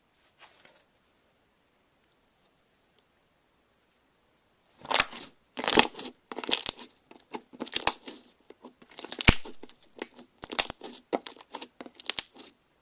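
Hands squeezing and stretching slime. A faint touch comes near the start, then about five seconds in a dense run of short crackles and pops begins and lasts almost to the end.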